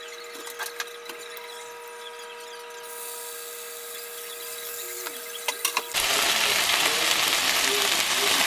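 Chicken breast fillets frying in oil in a nonstick frying pan. A faint sizzle starts about three seconds in, once the raw fillet is in the hot oil. About six seconds in it becomes a loud, steady sizzle. Before that there are a few light clicks and taps over a steady hum.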